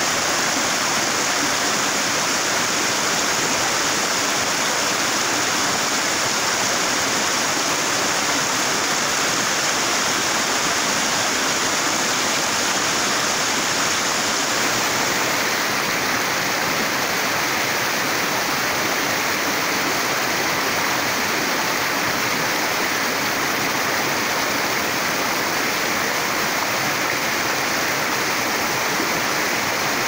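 Waterfall on a mountain stream pouring over rock ledges: a steady, loud rush of falling water. About halfway through its tone shifts a little.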